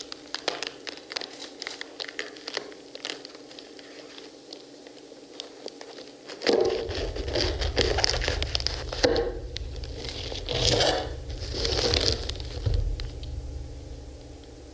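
Knives cutting into and prying apart pomegranates: small quick clicks and crackles of rind and seeds, then louder, denser crunching and tearing from about six seconds in, over a deep rumble.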